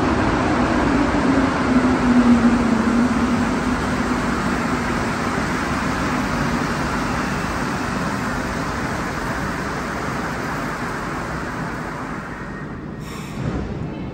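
A rubber-tyred Montreal Metro Azur train pulls into the station past the platform, a steady rumble with a hum that gradually eases as the train slows. Near the end the sound changes abruptly.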